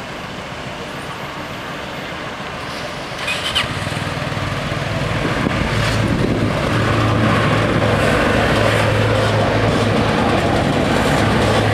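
Fiat ALn 501 'Minuetto' diesel railcar approaching and passing over the level crossing. Its engine is a steady low hum that comes in about three and a half seconds in and grows louder, then stays loud as the train goes by. A brief sharp sound comes just before the hum sets in.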